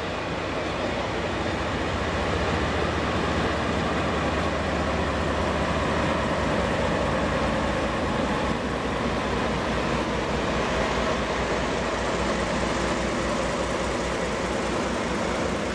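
A DE10 diesel-hydraulic locomotive's engine running as it draws a train of old passenger coaches slowly past, with the wheels rolling on the rails. The sound is a steady drone with a low throbbing underneath.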